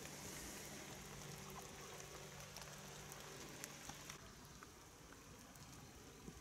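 Faint background noise of an outdoor recording: a steady hiss with a low hum that stops about four seconds in, and a few faint ticks.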